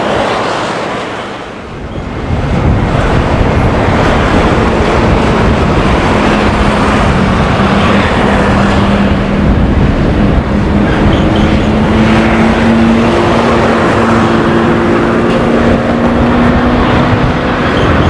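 Jet engines of a Boeing 737-800 on final approach, its CFM56 turbofans running as a loud steady rumble with a low engine hum that comes in a few seconds in. Gusting wind buffets the microphone throughout.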